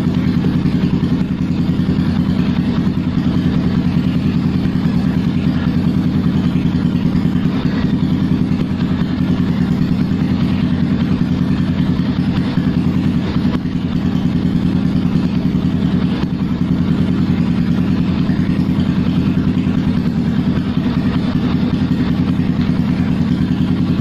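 Yamaha motorcycle with an aftermarket slip-on silencer idling steadily, a fast even exhaust beat with no revving, played for a sound check of the exhaust.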